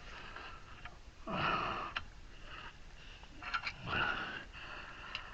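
A person's breathing: two breathy exhales or sniffs, one about a second in and one near four seconds, with a few faint clicks between them.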